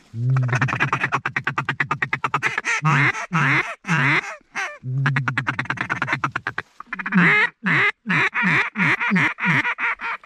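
Mallard duck call blown by a hunter: a rapid, even chatter of short notes, then a series of quacks falling in pitch, repeated twice, calling to mallards circling overhead.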